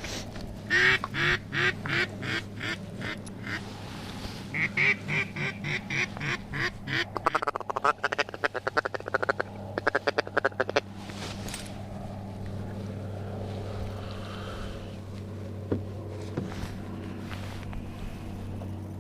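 Mallard hen quacking loudly in two descending series of about seven quacks each, followed by a fast run of clucks lasting about three seconds, over a steady low hum.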